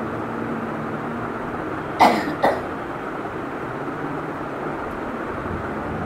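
Two short coughs about half a second apart over a steady background hiss.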